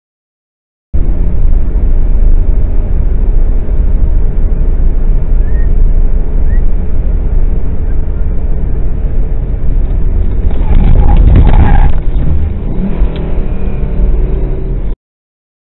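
Dashcam audio of a car driving on a highway: a loud, steady low rumble of road and engine noise heard from inside the cabin, starting about a second in and swelling louder for a moment about ten seconds in.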